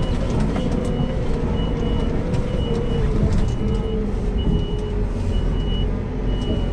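Kramer KT407 telescopic wheel loader's diesel engine running, heard from inside the cab, with its reversing alarm giving short high beeps about once a second as the machine backs up.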